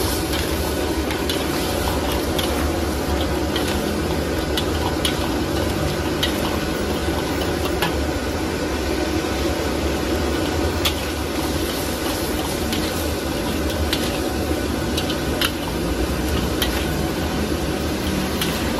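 Metal spatula stirring crabs in thick sauce in a steel wok, scraping and clicking against the metal at irregular intervals, while the sauce bubbles and sizzles over a steady low rumble.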